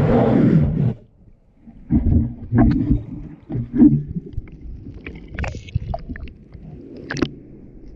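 Muffled underwater sloshing and rushing picked up by a submerged camera, in irregular bursts: a loud rush in the first second, then low uneven surges, with a few sharp crackling clicks later on.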